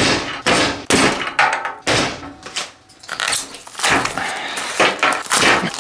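A hatchet chopping into a polystyrene foam packing block, sharp knocks about two a second, then after a short lull, hands breaking and tearing the foam apart with a rough, noisy crunching.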